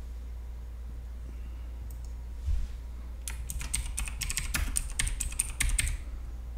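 Typing on a computer keyboard: a quick run of keystrokes starting about three seconds in and lasting about three seconds, after a single low thump, over a low steady hum.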